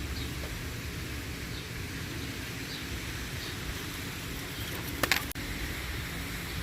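Wind buffeting the microphone, a steady low rumble, with a few faint high chirps in the first half and a brief burst of sharp clicks about five seconds in.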